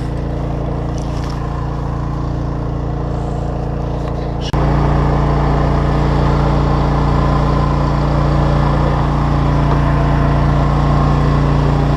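Steady engine drone aboard an electrofishing boat, holding one even pitch throughout. It steps up in loudness after a short click about four and a half seconds in.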